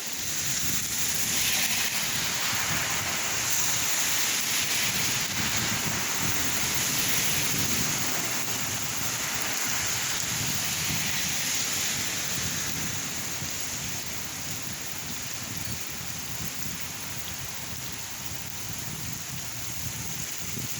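Rain falling and splashing, a steady hiss of drops. It swells into a heavier spell about a second in and eases off again in the second half.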